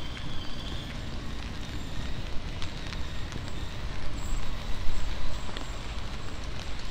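Rain on a wet city street: a steady patter with crackling drops over a low traffic rumble, swelling for a moment about four to five seconds in as a vehicle passes.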